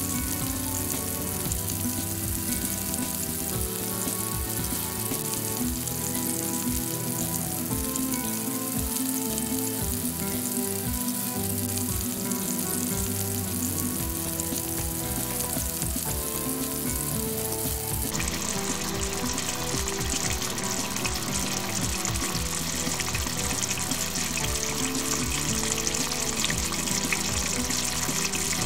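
Diced vegetables frying and sizzling in a pan, with background music. About eighteen seconds in, the sizzle turns abruptly louder and brighter.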